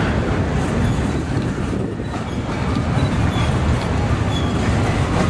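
Double-stack intermodal freight train's loaded well cars rolling past, a steady low rumble of steel wheels on rail.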